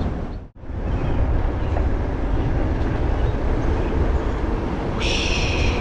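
Riding noise on a mountain bike: wind buffeting the microphone and tyres rumbling over the trail. The sound cuts out for a moment about half a second in. A brief high squeal comes near the end.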